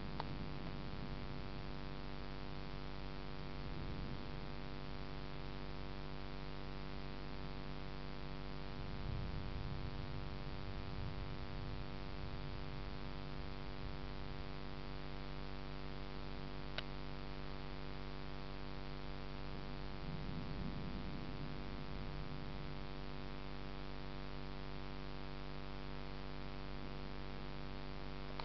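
Steady electrical hum with hiss, a dense set of unchanging tones, with a few soft low rumbles swelling and fading and a single sharp click about two-thirds of the way in.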